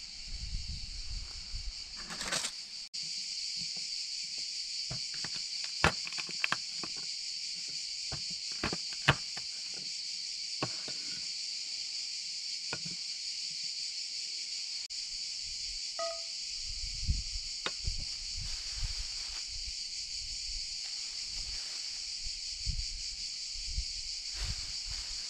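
Steady high-pitched buzz of cicadas in summer woodland, with scattered sharp clicks and knocks of things being handled on a table.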